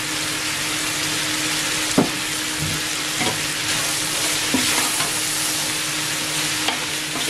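Chicken pieces, onions and capsicum sizzling in a large pot while a big metal spoon stirs and tosses them. A few sharp knocks of the spoon against the pot ring out, the loudest about two seconds in. A steady low hum runs underneath.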